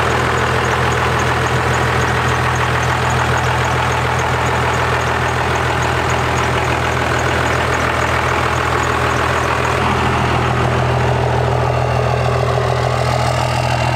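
Cummins diesel engine of a Dodge Ram pickup idling steadily, with the even low clatter of a diesel at rest.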